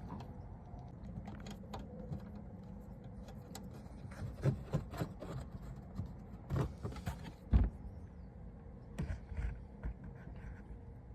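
Scattered light clicks and knocks from hands handling parts, with a cluster in the middle and the loudest knock about two-thirds of the way in, over a low steady hum.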